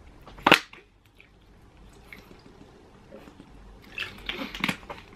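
A plastic water bottle is opened with one sharp click about half a second in, then water is gulped from it near the end, with small crinkles of the plastic.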